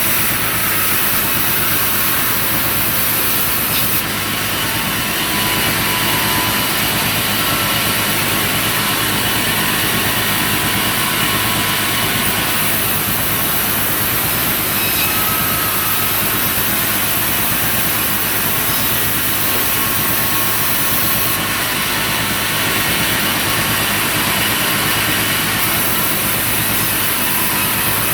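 Sawmill machinery running steadily, a loud even mechanical noise with a strong hiss and a few steady tones; the upper part shifts slightly a few times.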